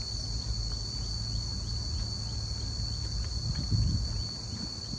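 Steady, high-pitched drone of an insect chorus, one unbroken tone, over a low rumble.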